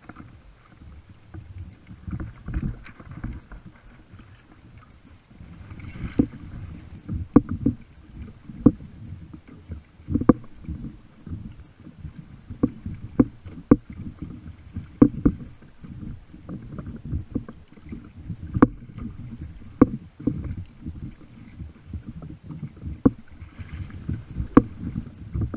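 Water sloshing and slapping against the hull of a kayak under way on a light chop, with sharp slaps about once a second over a low rumble of moving water.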